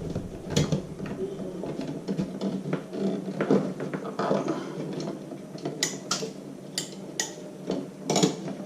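Light metal clicks and rattles as a wall light switch and its wiring are pulled out of the electrical box, with several sharper clicks in the second half.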